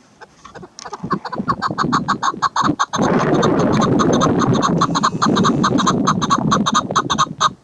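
Chukar partridge calling: a fast series of sharp clucking notes, about seven a second, that gets louder and denser about three seconds in and cuts off sharply near the end.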